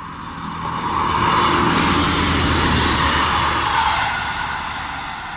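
Class 158 diesel multiple unit passing close by at speed: underfloor diesel engine and wheels on rail. The sound swells to its loudest about a second in, holds until about four seconds, then begins to fade.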